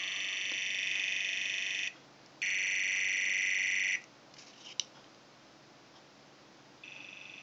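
Homemade sonic screwdriver's sound effect: a high electronic tone from a small earbud speaker driven by an ATtiny85 microcontroller. It plays in two bursts of about two and one and a half seconds, followed by a single click. A fainter tone starts near the end.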